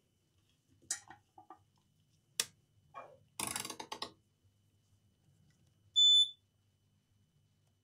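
Digital multimeter on its continuity (short-circuit) setting giving one short, high beep about six seconds in. A few light clicks and a brief rustle of probe handling come before it.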